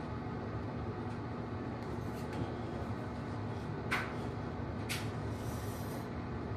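Steady low background hum, with two short, sharp metallic clicks about a second apart midway through as a plate-loaded EZ curl bar is worked through preacher curls.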